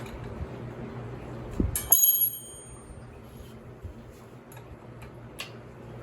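A small metal object strikes a hard surface about two seconds in and rings briefly with a bright metallic clink. A few light clicks follow.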